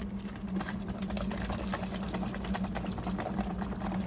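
A steady low mechanical hum with fast, irregular clicking and rattling over it.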